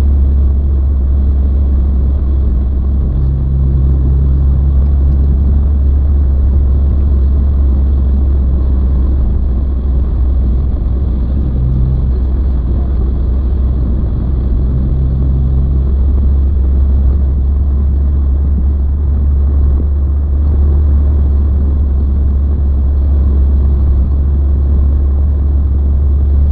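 Steady low rumble of a car cruising at road speed, heard inside the cabin: a deep road and engine drone with tyre hiss over it, unchanging throughout.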